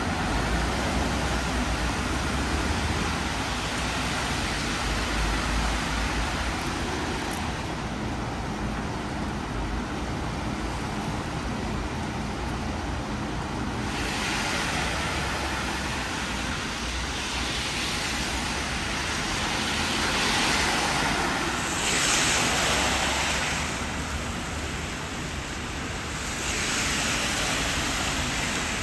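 Steady rain with cars passing on a wet road, their tyres hissing; the hiss swells louder twice in the last third.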